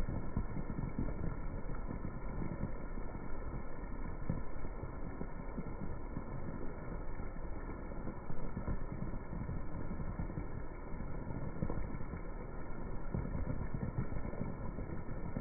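Heavy rain pattering on wet brick paving and puddles, slowed down with the slow-motion footage so it comes out as a deep, dense, steady hiss with no high end.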